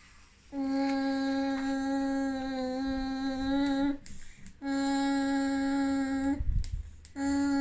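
A boy's voice humming three long notes, each held at the same steady pitch, with short breaks between them: excited vocalizing.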